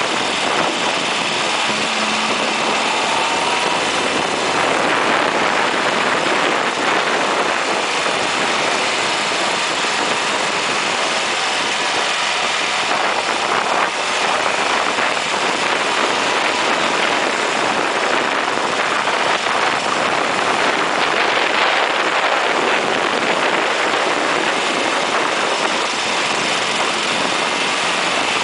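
A 1980 Ford Fiesta SuperSport driven at speed on a race track: engine and tyre noise under a steady rush of wind over an outside-mounted camera.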